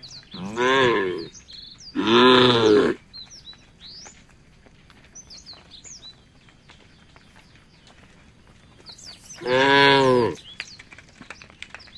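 Cattle mooing in three short calls of about a second each: two close together at the start and one near the end. Birds chirp in the background.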